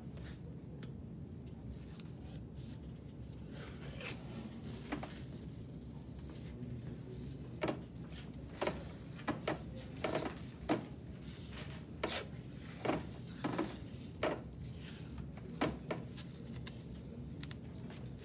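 White athletic tape being pulled off the roll, torn into strips and laid around an ankle: a run of short, sharp ripping sounds about half a second to a second apart, starting several seconds in, over a low steady hum.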